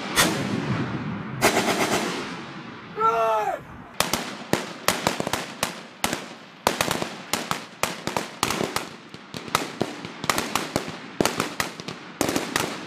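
Rifle fire from several shooters. Two loud shots with echoing tails come in the first two seconds and a brief shout follows about three seconds in. Then comes a rapid, irregular string of shots overlapping one another.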